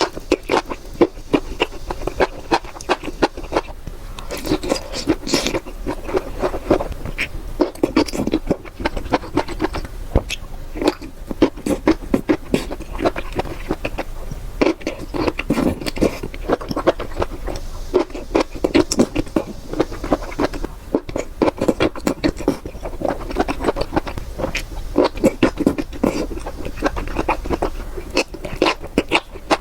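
Close-miked eating: continuous rapid chewing and crunching, with many small wet clicks and smacks from the mouth.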